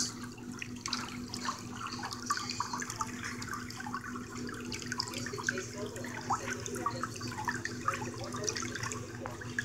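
Pedicure foot-spa tub running: water churning from its jet over a steady motor hum, with scattered small clicks.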